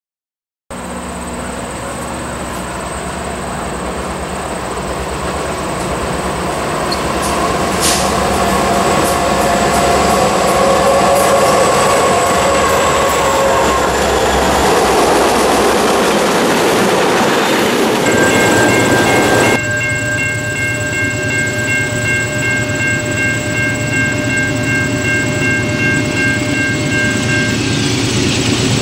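A diesel-hauled freight train of tank cars and a covered hopper passing close by, wheels clattering over the rail joints with engine rumble. After a sudden change about two-thirds through, a steady high-pitched tone is heard as a second train approaches, and a train horn begins near the end.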